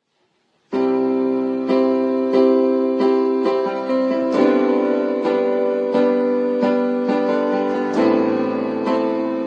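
Instrumental music on a piano-like keyboard, playing sustained chords that are struck anew about once a second. It starts under a second in.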